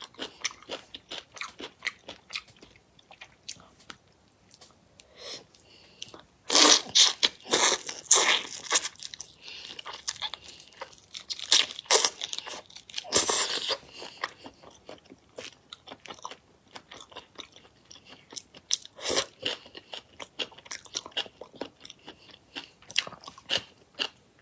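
Close-miked eating of whole shell-on prawns: biting and crunching through the shells and chewing, in many quick clicks, with loud dense bursts about six to nine seconds in and again around twelve to fourteen seconds in.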